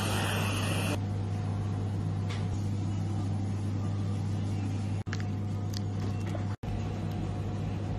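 Aerosol whipped-cream can hissing as it sprays cream, stopping about a second in. Under it a steady low hum runs on, cut off briefly twice.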